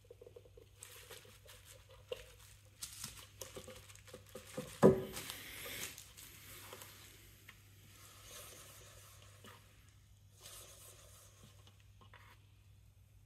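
Handling noises as the plastic Alvey reel and its parts are moved about on bubble wrap: scattered small clicks and crinkling, with one sharp knock about five seconds in. A faint steady hum runs underneath.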